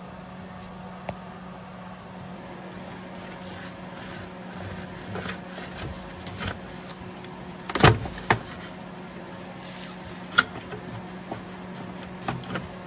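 Hands working on engine-bay parts: scattered sharp clicks and knocks of plastic intake duct and hoses being handled, loudest as a pair about eight seconds in, over a steady low hum.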